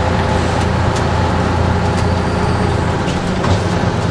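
Fire truck's engine and road noise heard from inside the cab while driving, a steady low rumble with a few faint clicks and rattles.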